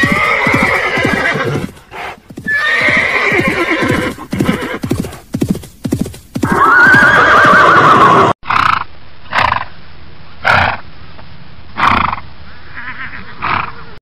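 A horse whinnying three times, the third call loud and wavering, with quick hoofbeats between the calls. About eight seconds in the sound cuts to short repeated horse sounds, about one a second.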